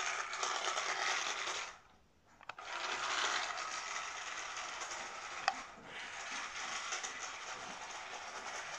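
Fireman Sam Wallaby 2 remote-control toy helicopter driving along a hard floor: its small electric motor and plastic gears whirr and rattle steadily. The sound cuts out briefly about two seconds in and then runs on. There is a single sharp click about five and a half seconds in.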